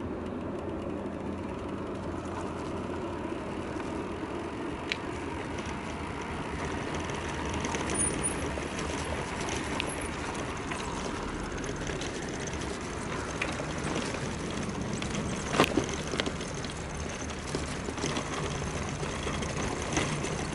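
250 W 24 V brushed DC electric motor of a recumbent trike's friction drive running, its steel roller studded with self-tapping screws turning against the rear tyre. A steady whine sits over tyre and road noise, with a couple of sharp clicks.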